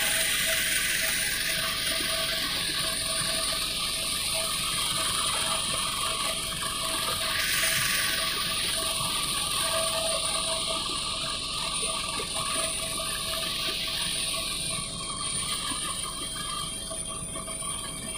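Helicopter in flight heard from inside the cabin: a steady engine and rotor drone with a high whine and a rush of air. The air hiss swells briefly midway and eases near the end.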